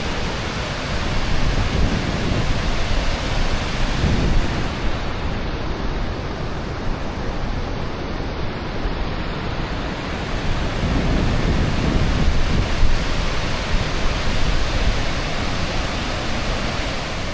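Krka waterfall's water rushing and cascading in a loud, steady roar, swelling with deeper rumbles a couple of times.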